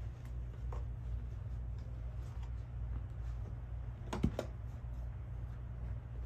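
Light clicks and handling noises from plastic vacuum parts being looked over, with one louder knock about four seconds in, over a steady low hum.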